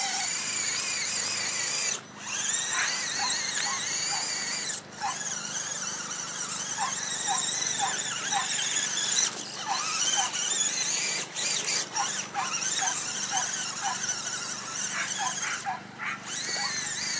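Axial SCX10 RC crawler's electric motor and gears whining as it drives through mud. The high whine wavers in pitch with the throttle and cuts out briefly several times.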